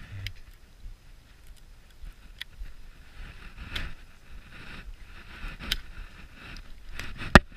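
Scattered light clicks and handling noises from a baitcasting rod and reel, with one much louder sharp click near the end.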